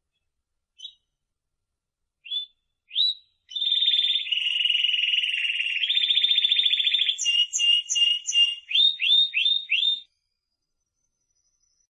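A Spanish Timbrado canary singing: a few short single notes, then a long rolling trill of about three and a half seconds. It changes to a run of evenly repeated notes and ends with about five quick sweeping notes, stopping about ten seconds in.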